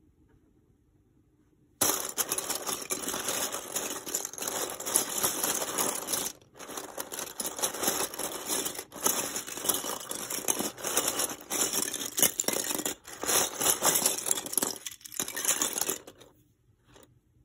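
A pile of plastic clay shape cutters clattering and rattling against each other as a hand stirs through them in a woven rope basket. It starts about two seconds in and stops shortly before the end, with a couple of brief pauses.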